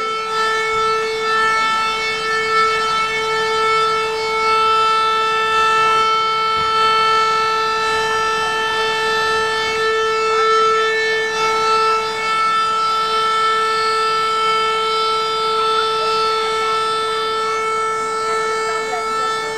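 A fire engine's warning signal sounding one loud continuous tone, held at a single steady pitch without rising or falling.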